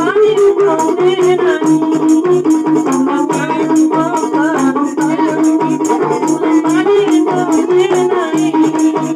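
Traditional gambus music played live: a plucked gambus lute melody over hand frame drums with jingles beating a fast, steady rhythm.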